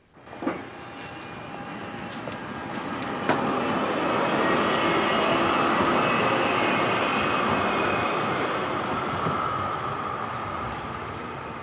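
A large passing vehicle: a rushing noise with several steady whining tones swells over a few seconds, holds, then slowly fades. A short falling sweep sounds just after it starts, and a sharp click about three seconds in.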